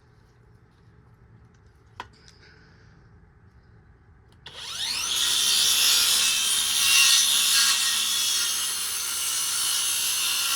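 Electric power saw that starts suddenly about four and a half seconds in, its whine rising as the blade spins up, then runs steadily as it cuts through a wooden window header to square the end. A single knock comes about two seconds in.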